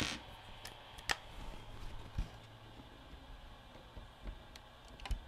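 A few faint, sharp clicks and taps, about a second apart early on, from hands handling a screw and a cordless driver over the open VCR's metal chassis, with a faint low hum between them.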